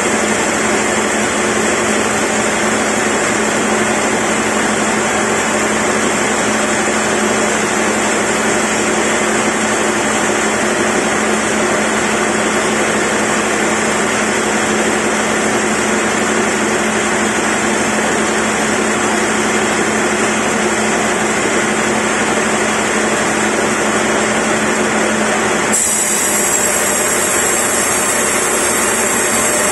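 Sawmill band saw running steadily as its blade rips lengthwise through a large log on the carriage. It gives a constant hum with a high whine over it. The high whine changes abruptly about 26 seconds in.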